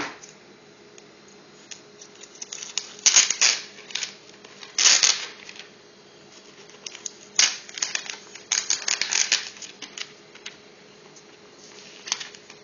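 Plastic protective film and wrapping being peeled and pulled off a new Nexus 7 tablet, in bursts of crinkling and crackling with sharp clicks at intervals.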